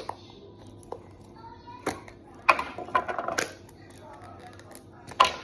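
Slime being handled by hand: a few single clicks, then a dense run of crackling, popping clicks about halfway through and another short one near the end.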